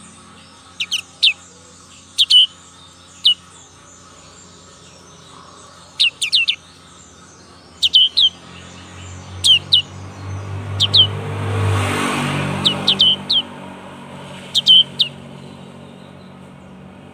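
Young black-capped white-eye calling from its cage: short, high chirps that sweep sharply downward, in quick groups of two to four, every second or two. A low rumble, like a passing vehicle, swells and fades under the calls, loudest about twelve seconds in.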